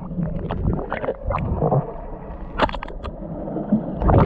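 Muffled water sloshing and gurgling heard by a camera under the water, with a few sharp clicks a little past halfway and a louder cluster of knocks near the end.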